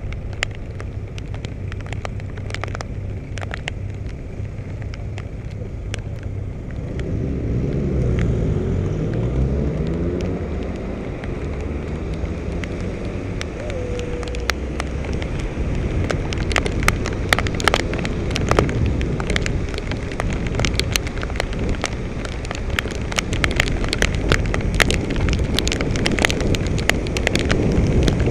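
Heavy rain heard from a bike-helmet camera: raindrops strike the camera as many sharp ticks, more of them in the second half, over a steady rumble of wind and wet road. About seven seconds in, a vehicle's sound sweeps past close by.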